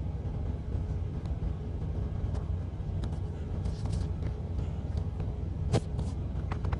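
Steady low rumble of an idling truck engine, with scattered faint clicks and one sharper click near the end.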